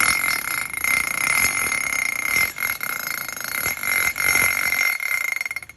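Makita 17 mm rotary hammer running in drill mode: its electric motor gives a loud, steady high-pitched whine with a few brief dips, then stops shortly before the end.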